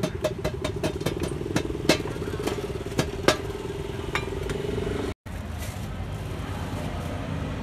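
Metal spatula clinking against hot charcoal and an aluminium pot lid, sharp taps about three a second, over a steady mechanical hum. The tapping stops about four seconds in, and the sound cuts off sharply a second later, giving way to a duller steady background.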